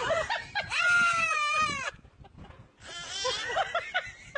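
A toddler and a young goat yelling back and forth at each other: one long cry that rises and falls about a second in, then after a short pause a run of shorter, choppier calls.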